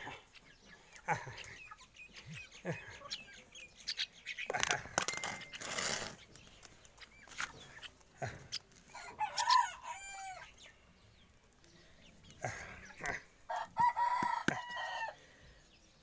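Chickens calling: two drawn-out calls, one about nine seconds in and a longer one about thirteen seconds in, over scattered light taps and clicks.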